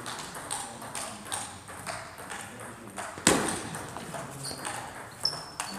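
Table tennis rally: the ball clicking off bats and table in quick alternation, roughly twice a second, with one louder sound about three seconds in. Short high squeaks near the end from shoes on the hall floor.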